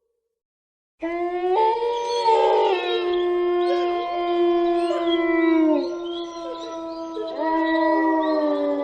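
A pack of canines howling together: several long howls at different pitches overlap. They start suddenly about a second in, after silence, and some of them fall in pitch as they die away.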